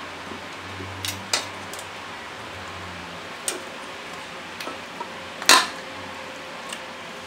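Metal tongs clinking and knocking against a stainless steel pot while pork hocks are moved around inside it: several scattered sharp clicks, the loudest about five and a half seconds in, with a brief metallic ring.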